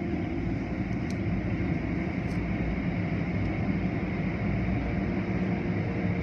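Automatic car wash running, heard from inside the car: a steady, dense noise of water spray and the wash's cloth strips and machinery, with a low hum underneath.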